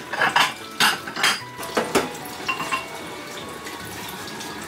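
Kitchen knife and ceramic plate clattering: a run of sharp clinks and knocks over about the first three seconds.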